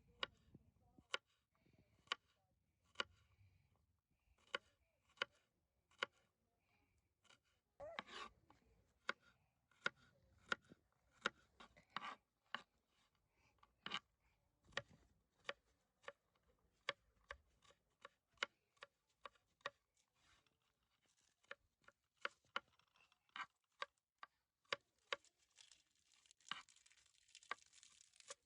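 Knife chopping food on a cutting board in single sharp strokes, roughly one a second and sometimes quicker. A soft hiss joins near the end.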